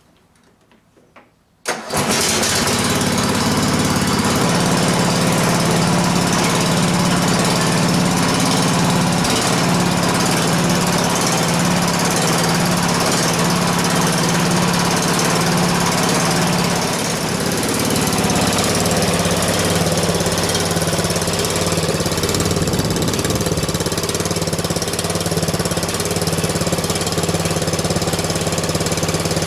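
Cub Cadet LT1045 lawn tractor engine starting about two seconds in, then running steadily with a really loud exhaust, dropping slightly in level partway through. The exhaust is loud because the muffler has come disconnected from the exhaust pipe.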